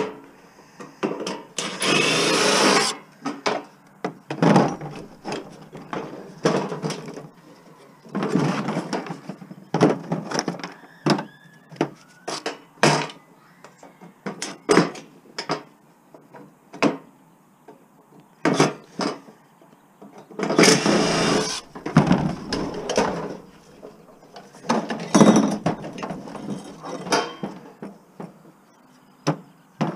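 Stainless steel barbecue parts being handled and taken apart with hand tools: irregular metal knocks and clanks, with four longer clattering stretches of about a second each.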